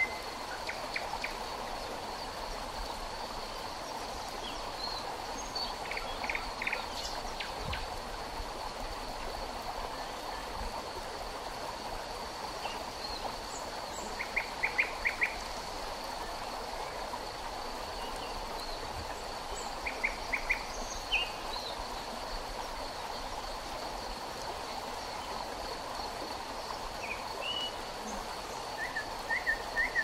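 Forest river flowing with a steady rush of water. Birds call over it in short runs of quick repeated chirps several times, the loudest about halfway through and again about two-thirds in, and a thin steady high tone runs beneath.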